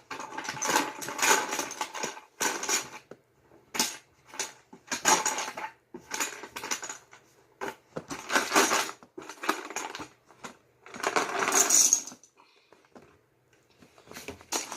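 Loose plastic Lego bricks clattering and rattling together as they are poured out and sifted, in a string of short bursts.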